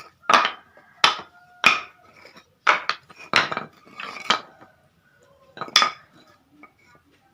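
Short pieces of cut timber knocked and set down against each other: a series of sharp wooden clacks, about seven, with gaps between them.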